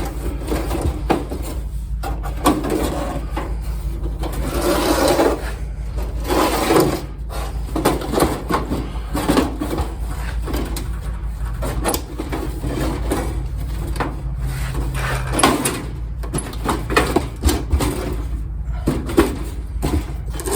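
Sheet-metal parts of a kerosene heater being worked into place by hand: irregular scraping, rubbing and knocking of metal on metal, over a steady low hum.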